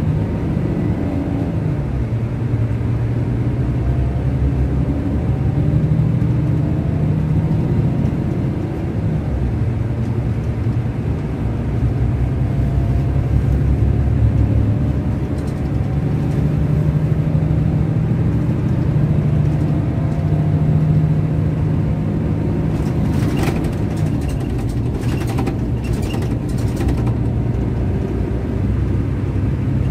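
Scania K400IB coach's 13-litre six-cylinder diesel engine heard from inside the passenger cabin while driving. Its steady drone rises and falls in pitch several times as the revs change. A few sharp clicks or rattles come about three quarters of the way through.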